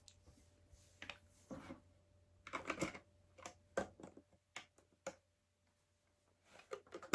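Small plastic Lego pieces clicking and tapping as they are handled and pressed together, in irregular single clicks and short clusters, with a brief pause about five seconds in.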